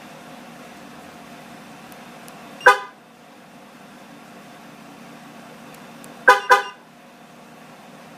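Pickup truck's horn giving one short chirp, then a few seconds later two quick chirps, over a steady low hum. These are the alarm system's lock and unlock confirmation honks.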